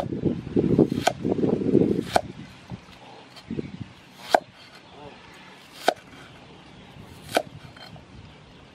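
A cleaver slicing an onion on a wooden chopping board. The blade knocks sharply on the board five times, about every one and a half seconds later on, with a louder, busier stretch of sound in the first two seconds.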